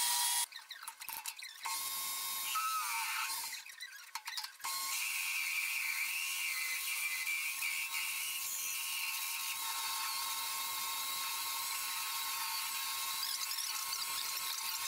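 Metal lathe turning a large metal disc while a twist drill in the tailstock chuck bores into its centre, making a steady high-pitched cutting whine as chips curl off. The sound briefly drops away twice in the first five seconds.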